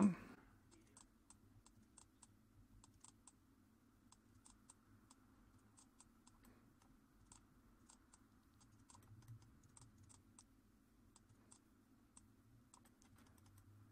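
Faint, irregular clicking of a computer keyboard key and mouse, about two or three clicks a second, over a low steady room hum.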